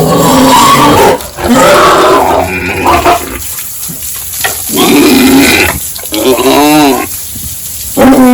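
Pigs squealing and grunting in several loud bursts, with a rising-and-falling squeal about two-thirds of the way in.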